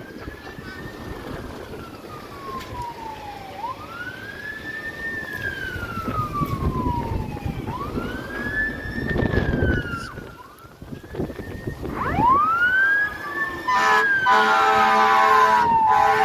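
Fire engine siren wailing, each cycle rising quickly and falling slowly, repeating about every four seconds and growing louder as the truck approaches. A car passes about two-thirds of the way through, and near the end a loud, steady horn sounds in blasts over the siren.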